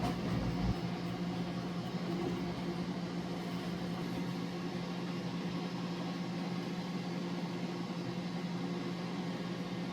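Steady, even machine hum with a constant low tone and a hiss over it.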